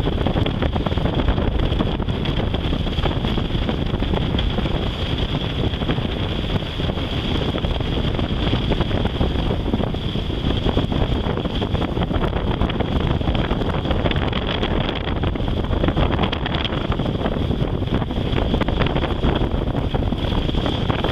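Wind buffeting the microphone over the wash of choppy water around a moving sailboat, with a steady thin high whine running under it.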